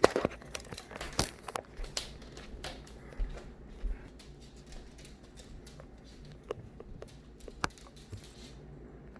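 Rustling and crinkling handling noise with scattered clicks and knocks, busiest in the first three seconds and thinning out to occasional clicks.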